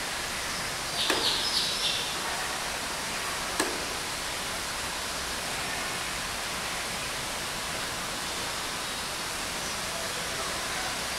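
Steady, even background hiss of conservatory ambience. About a second in come a few brief high chirps, and a sharp single click follows a couple of seconds later.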